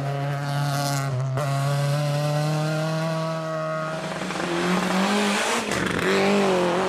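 Rally car engines running hard at high revs: a steady engine note that slowly sinks over the first four seconds, then rises again as another car accelerates near the end.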